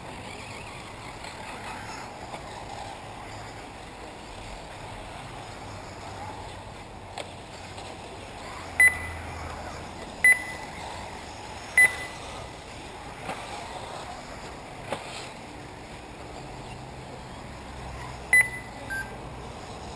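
Short electronic beeps from a race timing system, three about a second and a half apart and a fourth near the end, over steady outdoor background noise.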